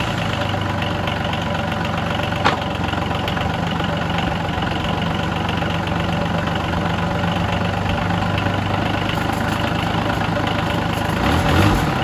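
Small diesel engine idling steadily, freshly started, with a single sharp click about two and a half seconds in and a brief rise in level near the end.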